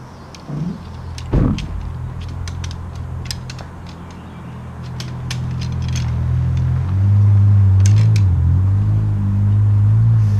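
Clicks and light metallic knocks of the canoe's aluminium frame poles as the sections are pulled apart and folded, scattered through the first six seconds and again near eight seconds. Under them runs a steady low hum that grows much louder from about seven seconds in and becomes the loudest sound.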